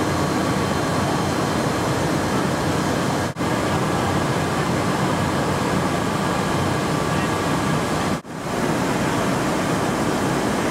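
Steady, loud rush of engine and air noise inside a C-17 cargo hold, with a faint whine on top. It drops out for an instant twice.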